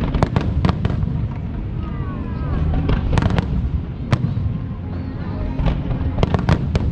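Aerial fireworks going off: sharp cracks in quick clusters, near the start, around three seconds in and again near the end, over a steady low rumble of bursts.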